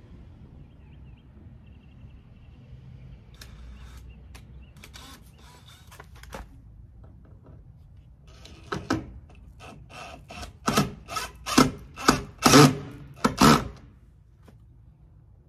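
A quick series of sharp knocks from tool work, a few a second, growing louder and then stopping near the end, after some faint clicking over a low hum.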